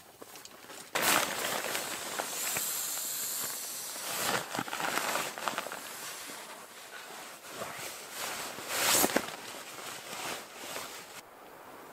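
Nylon sleeping bags and parka fabric rustling and swishing against an inflatable sleeping pad as two people shift about on it, with louder swishes about a second in, around four seconds and around nine seconds. Near the end it gives way to a fainter steady hiss.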